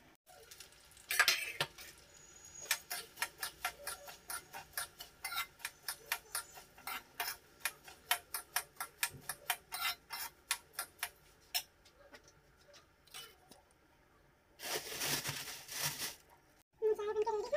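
Metal ladle clinking and scraping against a steel kadai as it is stirred, a quick run of sharp taps about three to four a second, then a short rush of noise near the end.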